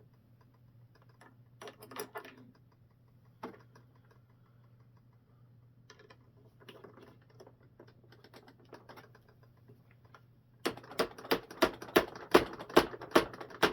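Scattered handling clicks and rustles of hard plastic model parts, then a quick, even run of sharp taps, about three a second, near the end as a part is knocked into place.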